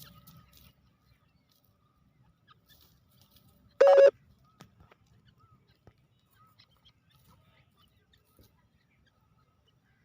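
A teetar (francolin) giving one short, loud, ringing call about 4 seconds in, with faint short chirps scattered around it.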